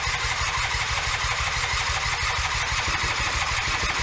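Electric starter cranking the Eton Viper 90cc two-stroke quad engine with a fast, even pulse, the engine not firing despite a squirt of starting fluid, which the owner suspects is a missing earth to the spark plug.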